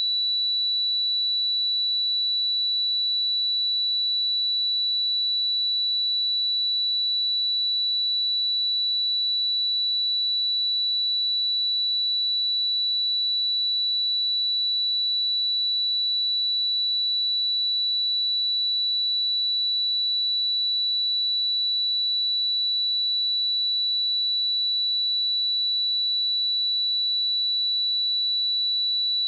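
A pure 3947 Hz sine-wave test tone, a single steady high-pitched tone held at constant level, used to check speakers or headphones.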